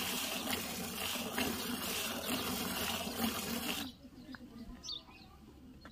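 Milk squirting from a Banni buffalo's teat into a half-full steel pot during hand milking, a rhythmic hissing splash with each squeeze. The squirting stops suddenly about four seconds in.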